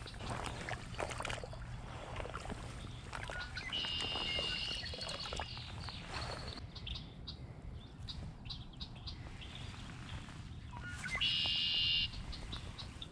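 A bird gives a buzzy, trilled call twice: once about four seconds in and again, louder, near the end. Between them are scattered soft splashes and rustles of someone wading through a shallow, weedy pond.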